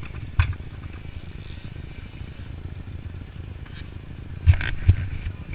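Motocross motorcycle engine running with a steady low rumble, with sharp knocks and rattles that become louder and more frequent near the end.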